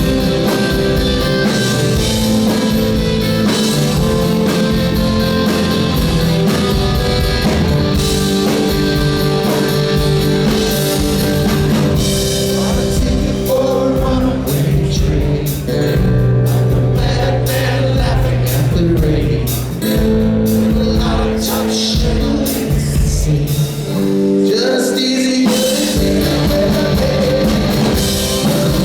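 Rock band playing live, with electric guitars, drum kit and a singing lead vocal; the bass drops out briefly near the end.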